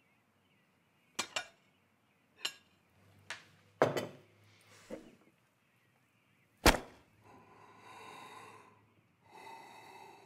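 Cutlery clicking and knocking against plates at a meal: about six sharp, separate clicks, the loudest a little past halfway, followed by two softer, longer breathy sounds near the end.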